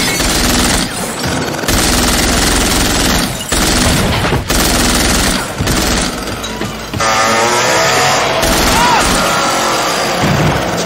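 Rapid bursts of gunfire with bullets shattering mirror glass, mixed into a loud dramatic film score.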